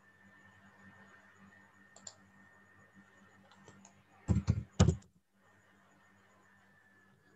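Computer keyboard keys struck to enter commands: one light click about two seconds in, then a quick burst of several loud keystrokes a little past four seconds, over a faint steady hum.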